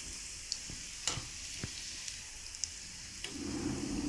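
Prawn vadas deep-frying in hot oil: a steady sizzling hiss with a few sharp pops and ticks. A short low hum joins near the end.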